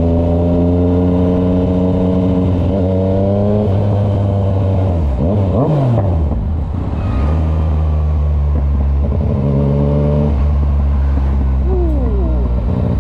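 Yamaha MT-09's three-cylinder engine running under way, holding steady revs. About halfway through the revs drop and swing back up, and they climb again near the end as it accelerates.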